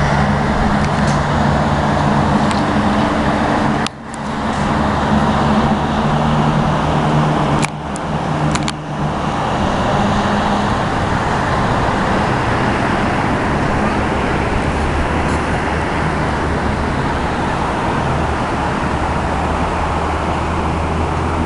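Steady road traffic noise with a low engine hum. The sound cuts out abruptly for a moment about four seconds in and twice more around eight seconds.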